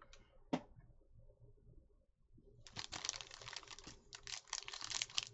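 Foil wrapper of a trading-card pack crinkling as it is handled and opened: one sharp click about half a second in, then a dense, crackling rustle from about halfway through.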